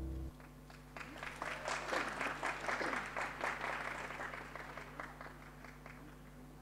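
The dance music stops just after the start, and about a second later an audience breaks into applause that swells, then thins out and fades away near the end.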